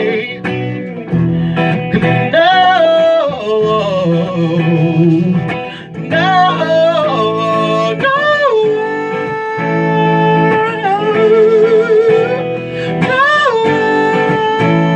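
Acoustic guitar accompaniment with a voice singing wordless, sliding ad-lib notes, several scooping up in pitch and one wavering held note a little past the middle.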